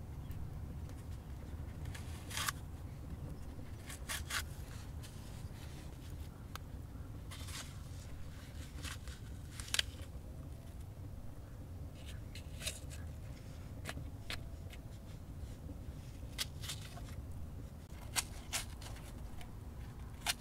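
Small knife cutting into a raw apple: short, crisp crunches and scrapes of the blade through the flesh, coming every second or two at uneven intervals, over a steady low background rumble.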